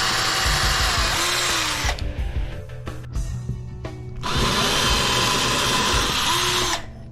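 Power drill running a pilot bit to drill screw holes, in two bursts: one ending about two seconds in, the other starting about four seconds in and stopping shortly before the end, its motor whine rising as it spins up.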